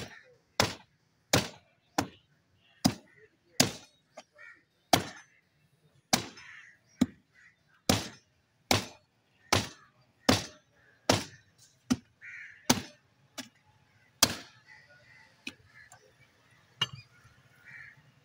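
Heavy butcher's cleaver chopping into a cattle head on a wooden chopping stump: sharp blows about one every three-quarters of a second, thinning to a few lighter knocks after about fourteen seconds.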